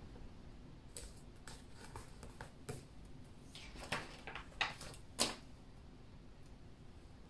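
Scattered light clicks and taps of small objects being handled on a desk, with the loudest tap about five seconds in.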